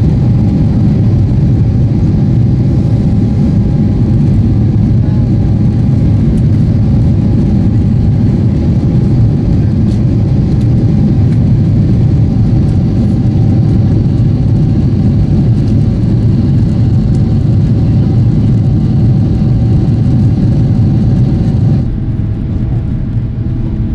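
Cabin noise inside a Boeing 777-300ER climbing after takeoff: the steady, loud roar of its GE90 engines and rushing air, with a faint steady tone above it. Near the end it drops to a softer, duller hum.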